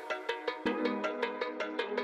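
Background music with a quick, steady ticking beat over held chords; a deeper note comes in about two-thirds of a second in.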